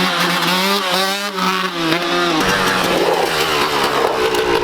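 1996 Yamaha YZ125 single-cylinder two-stroke dirt bike with a Pro Circuit exhaust running at high revs, holding a fairly steady, slightly wavering note. About two and a half seconds in, the note turns rougher.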